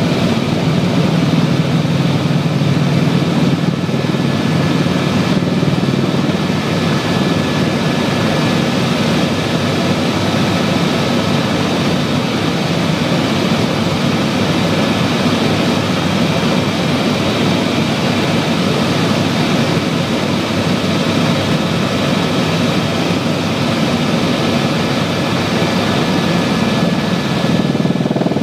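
Helicopter in flight heard from inside the cabin: the steady drone of the rotor and turbine engine, with a thin steady whine above it.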